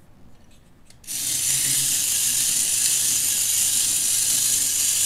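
Tin toy robot's mechanism set going about a second in and running with a loud, steady, high-pitched whirring rattle; it's noisy.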